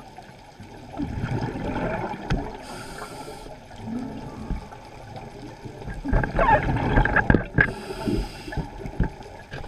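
Muffled underwater water noise with bubbling gurgles, heard through a submerged camera. It swells in two louder spells, one about a second in and a stronger one from about six seconds.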